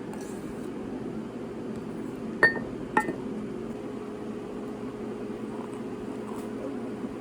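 Two sharp clinks of glass or dishware, about half a second apart, over a steady low hum.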